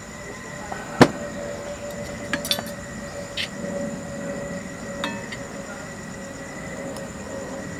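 An aluminium drink can set down on the table with a sharp knock about a second in, then a few light clinks of metal camp cookware, over a faint steady hum.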